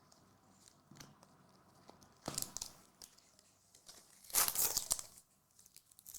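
Trading card pack wrapper being torn open and crinkled: a short rip about two and a half seconds in and a longer, louder one about four and a half seconds in.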